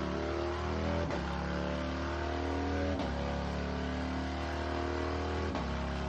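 Harley-Davidson Milwaukee-Eight V-twin accelerating hard through the gears. The engine note climbs, then drops sharply at three upshifts, about a second, three seconds and five and a half seconds in, each made with the air shifter while the kill module briefly cuts the ignition.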